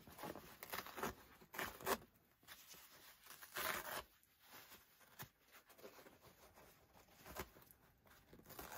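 Tear-away embroidery stabilizer being ripped off the back of the stitched fabric in several short pulls, the longest and loudest about three and a half seconds in, with a few faint clicks in between.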